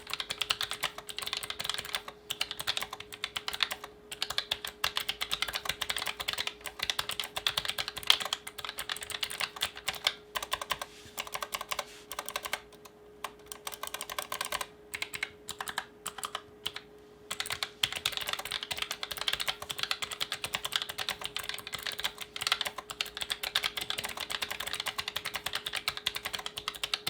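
Typing on a Genesis Thor 420 RGB low-profile mechanical keyboard with dampened blue clicky switches: a fast, continuous clatter of key presses that thins out to slower, separate presses partway through, then picks up again.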